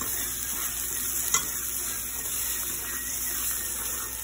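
Scrambled eggs sizzling in a non-stick pan while being stirred with a fork, with a single sharp click about a second and a half in.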